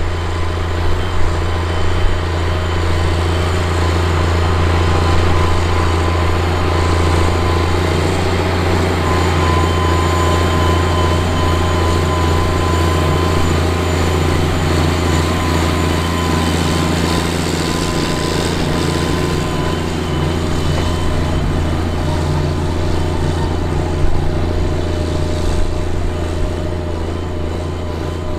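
Steiger SM-325 Panther IV tractor's Komatsu diesel engine running steadily under load while chisel plowing, a deep drone with a steady higher whine over it. It fades a little near the end as the tractor moves away.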